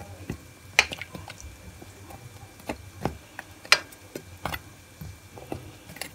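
A metal spoon clicking against a metal pot as fried balushahi are moved about in sugar syrup: about six sharp, scattered clicks.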